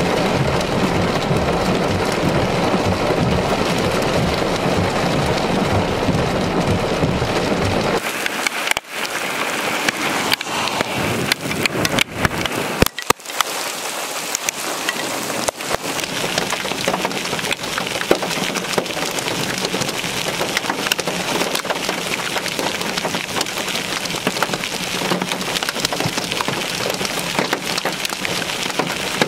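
Heavy rain mixed with hail. For about the first eight seconds it is a dense, loud pelting with a deep drumming, as on a vehicle. After a cut it becomes a lighter hiss of rain, scattered with sharp clicks of hailstones striking the ground.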